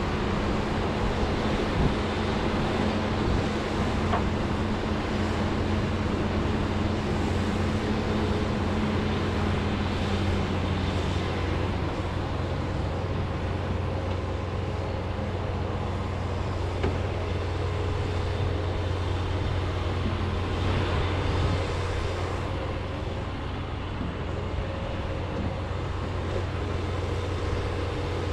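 John Deere 210G excavator's diesel engine running steadily with a low hum, with a few faint knocks.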